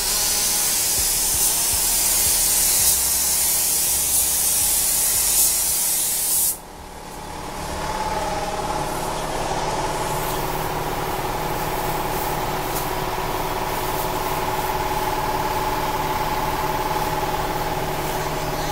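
Gravity-feed paint spray gun hissing loudly as it atomises paint onto a car body, cutting off suddenly about six seconds in when the trigger is let go. After that a steady machine hum with a few held tones builds up over a second and carries on.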